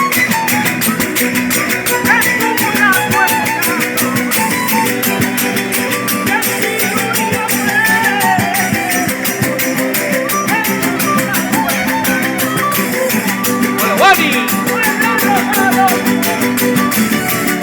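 Live verdiales folk music from a panda: guitars strumming over a fast, steady beat of percussion strokes, with a wavering melodic line running over it.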